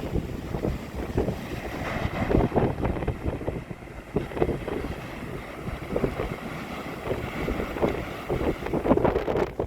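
Gusty typhoon wind buffeting the microphone in irregular blasts, over the wash of rough surf on the shore.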